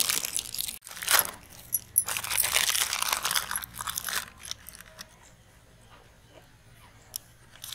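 Aluminium foil wrappers crinkling and rustling as they are peeled off white chocolate bars. The crinkling is loudest for about the first four seconds, then turns faint.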